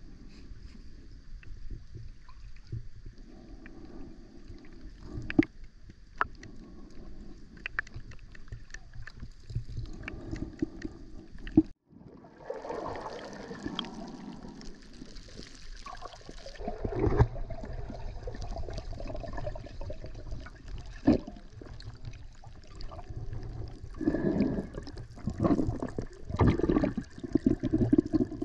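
Muffled underwater sound picked up by a camera below the surface of a thermal spring pool: a low steady rumble with scattered clicks and knocks. It cuts out for a moment about twelve seconds in, and grows louder with gurgling bursts in the last few seconds, where the water is full of rising bubbles.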